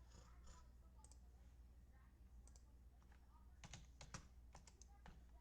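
Faint clicking and typing on a computer keyboard, with a quick run of clicks about three and a half to five seconds in.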